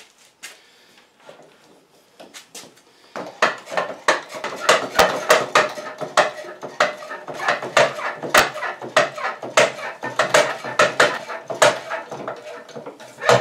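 Hydraulic scissor lift table being pumped up by its handle under a loaded air compressor: a quiet start with a few clicks, then from about three seconds in a steady run of rapid metallic clicking and clanking.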